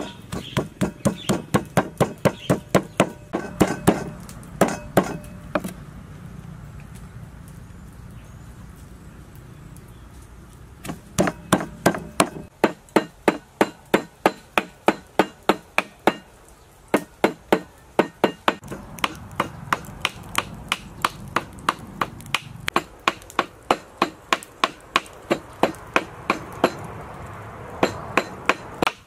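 Cleaver chopping cooked fish on a thick round wooden chopping block: rapid, even strikes about four a second, easing off for a few seconds about a fifth of the way in before carrying on.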